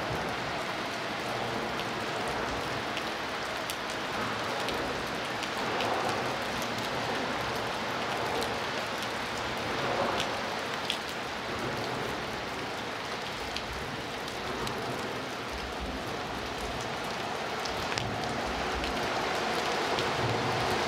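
Steady rain falling, with scattered single drops ticking sharply close by.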